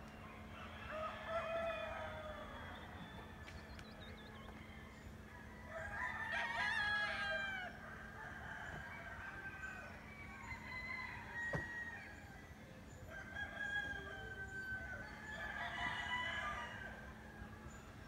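Several roosters crowing one after another, some calls overlapping, about five crows in all, the loudest about six seconds in. A steady low hum runs underneath, and there is a single sharp click a little past the middle.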